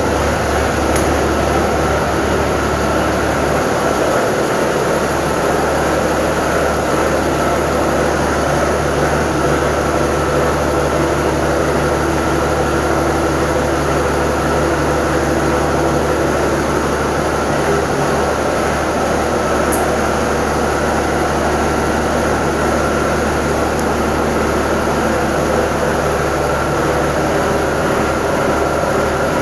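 Peterbilt 351 semi truck's engine idling steadily with a loping idle after a cold start.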